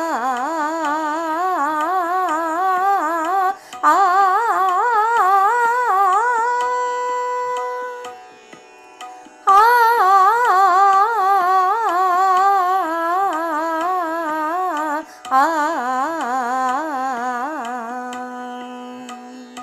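A voice sings a Raag Bhairav alankar on the vowel 'aa' (aakar) in the 1-2-3-1-3-3 pattern: it climbs note by note with a wavering ornament on each to the upper Sa, holds it, then after a short pause descends and settles on a long low Sa near the end. A steady drone sounds underneath.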